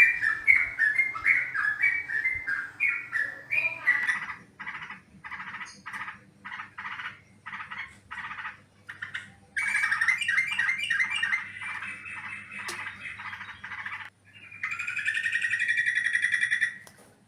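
Trucukan (yellow-vented bulbul) calling: a fast run of chirps, then separate notes spaced about two-thirds of a second apart, then a dense chattering stretch. Near the end comes a harsh buzzy call of about three seconds that cuts off.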